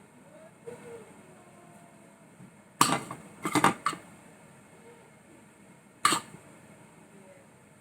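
Kitchen dishes and utensils clattering: a quick cluster of sharp clinks and knocks about three seconds in, and one more a few seconds later.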